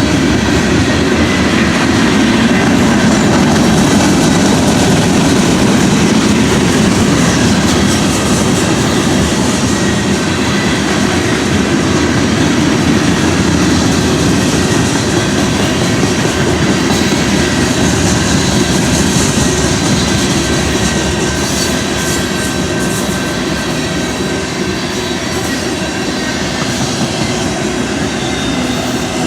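Freight train's cars rolling past, steel wheels rumbling and clacking on the rails, with a thin wheel squeal running through it.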